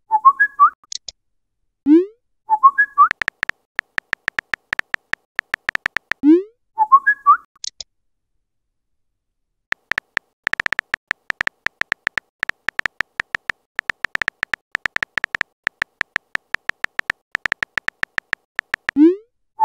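Messaging-app sound effects: rapid keyboard tap clicks as text is typed, pausing for about two seconds in the middle. A rising pop and a short chirping alert tone mark each new message, three times.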